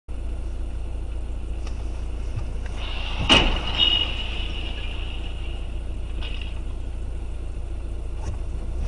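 Car driving with a steady low road rumble; a high screech begins a little before a single loud bang about three seconds in, a collision, and the screech fades out by about six seconds.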